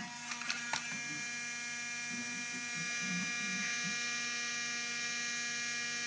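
Numatic Hetty desktop mini vacuum cleaner running: its small electric motor gives a steady multi-tone whine. A few sharp clicks and knocks come in the first second as the unit is handled.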